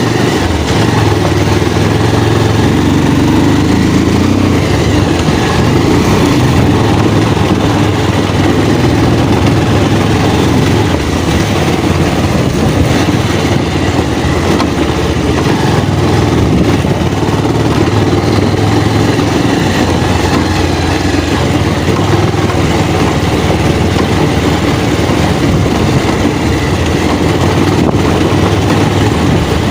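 Motorcycle running steadily under way on a rough dirt track, its engine rumble mixed with a loud, even rush of noise.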